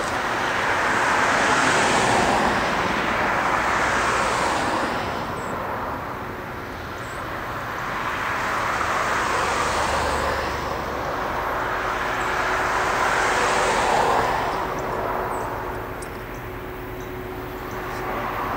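Two diesel locomotives of a heavy freight train approaching while pulling hard, heard as a distant rushing roar that swells and fades in slow waves, with a faint steady hum joining about halfway through.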